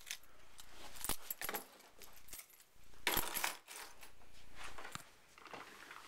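Small metal tools clinking and rattling as they are handled, with a sharp clink about a second in and a cluster of clinks about three seconds in, rustling handling noise between.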